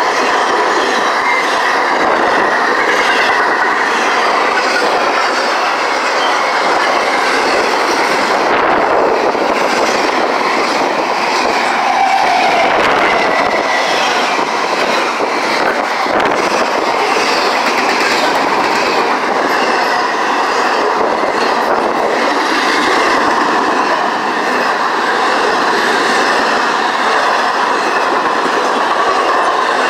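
A freight train of double-stacked intermodal container cars rolling past close by at a steady speed, its wheels clattering continuously over the rails.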